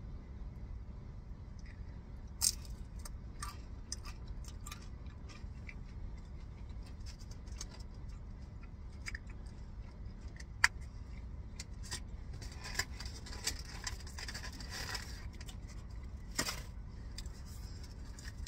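Crunchy mini tacos being bitten and chewed: scattered crisp cracks, with a longer run of crunching about twelve to fifteen seconds in, over a steady low rumble.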